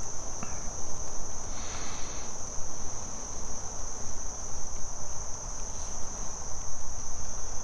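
Insects in the woodland, crickets or similar, keeping up a steady, unbroken high-pitched drone, with a low background rumble underneath.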